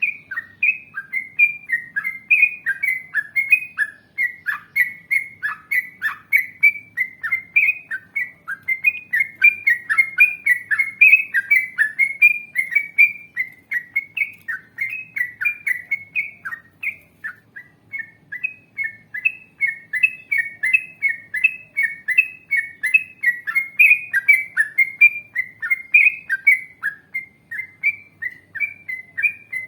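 Yellow-vented bulbul singing a long, fast, unbroken run of bubbly chirping notes, about three or four a second, with a brief pause a little past halfway.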